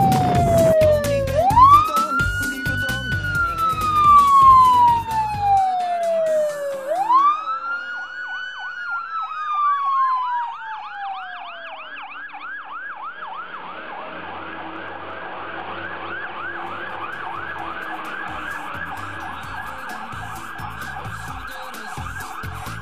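Police car siren: two long wails, each rising quickly and then falling slowly, then switching about seven seconds in to a fast yelp that warbles about four times a second. A low music beat runs under the first few seconds.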